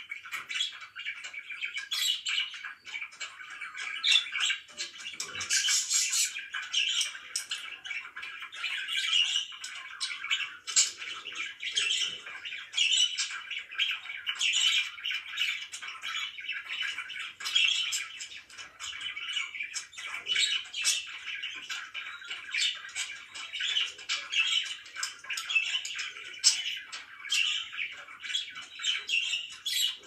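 Several pet budgerigars chattering and warbling without a break, with sharp chirps and squawks scattered throughout.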